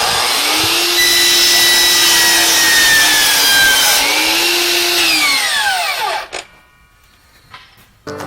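Power saw cutting through a 2x4: the motor runs at full speed as the blade goes through the wood for about four seconds, revs once more, then winds down with a falling whine and stops about six seconds in.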